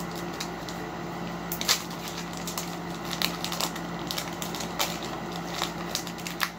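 Foil wrapper of a Pokémon card booster pack crinkling and tearing as it is pulled open by hand, in scattered crackles, the sharpest about a second and a half in.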